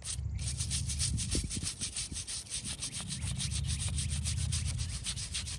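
Small hand brush scrubbing a stone angel statue on a headstone, in rapid back-and-forth strokes.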